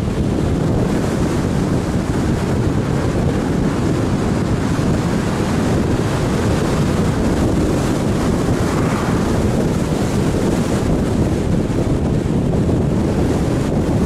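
Steady wind rush buffeting the microphone of a camera on the hood of a moving car, over the hum of tyres on the road. About nine seconds in, an oncoming car passes with a brief swell.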